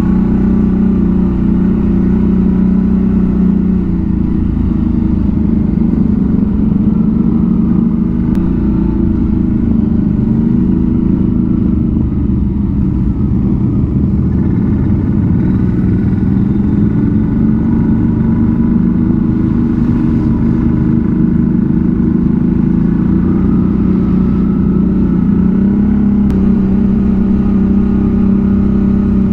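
ATV's V-twin engine running under way, its pitch sagging and rising with the throttle and stepping up near the end.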